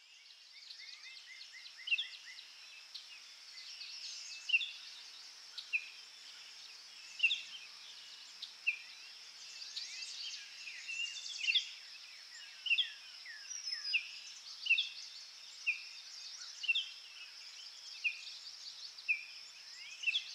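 Forest ambience of small songbirds chirping, one bird repeating a short call about once a second, over a steady high hiss of insects.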